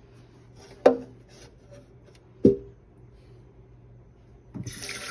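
Two sharp knocks, about a second and a half apart, as parts of a drip coffee machine are handled, with light ticks between; near the end water starts running steadily.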